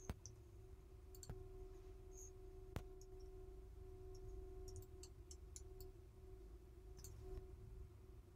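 Near silence: room tone with a faint steady hum, and three faint computer mouse clicks in the first three seconds.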